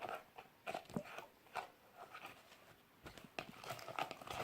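Slime being kneaded and squeezed by hand after a little borax activator is worked in, giving faint, irregular sticky squelches and clicks.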